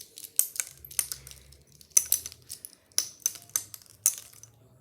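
Plastic Rubik's Cube being forcefully twisted and wrenched, its layers and pieces giving a string of sharp, irregular clicks and snaps as it is being broken apart.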